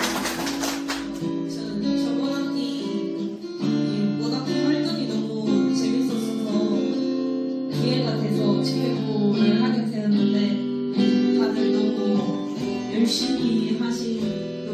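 Acoustic guitar playing a slow chord progression, with the chords changing every few seconds.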